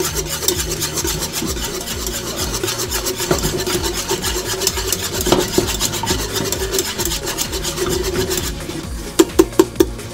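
Wire whisk scraping quickly round the bottom of a Cuisinart pot, working a thick flour-and-butter roux that pushes back against the whisk. Near the end the steady scraping stops and a few sharp taps follow.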